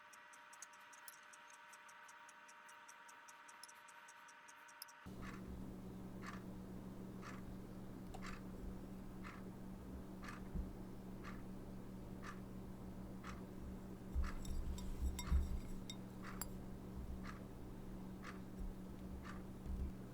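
Regular ticking, a little more than one tick a second, over a low steady hum, with a few louder bumps and crackles about two-thirds of the way in. The first few seconds hold faster, finer clicking over a few steady tones before the sound changes abruptly.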